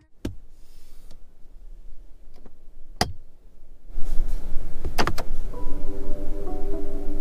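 A sharp switch click, then from about four seconds in the steady whir of an ORA Ballet Cat's electric door motor (power window or mirror drive) running, with a few clicks over it.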